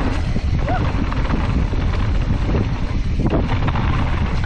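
Steady, loud wind buffeting the microphone as a mountain bike is ridden down a trail.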